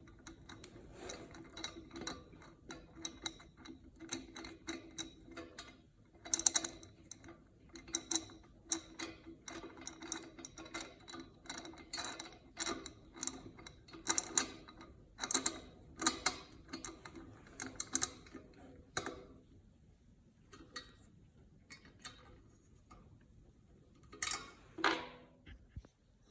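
Wrench tightening the nuts and bolts of a metal roller stand, giving a long run of irregular metallic clicks a few times a second. The clicking thins out for a few seconds, then a couple of louder clicks come near the end.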